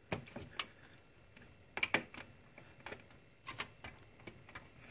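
Side panel of a PC case being handled and fitted back on: scattered light clicks and knocks, in small clusters a second or two apart.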